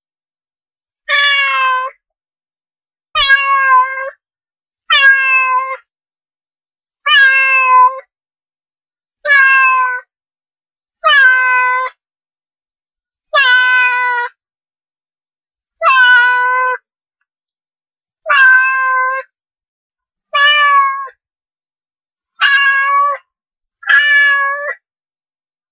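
Domestic cat meowing over and over, a dozen meows about one every two seconds, each under a second long, with silence between them.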